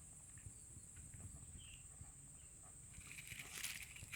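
Near silence: faint outdoor ambience with a steady high-pitched hum and a few faint chirps, and a soft rustle about three seconds in.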